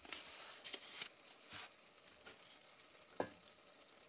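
Faint sizzling on the stovetop, with a few soft clicks and scrapes of a plastic spoon scooping cooked green beans out of a pot.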